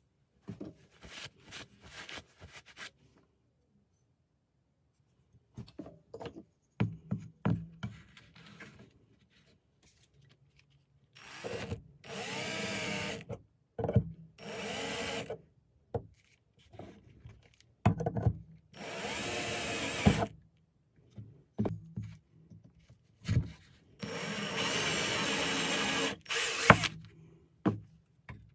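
Cordless drill (a DeWalt drill/driver) running in four short bursts of a few seconds each while boring into a knife's wooden handle, its whine rising and falling in pitch as the bit works. Clicks and knocks of handling come between the runs.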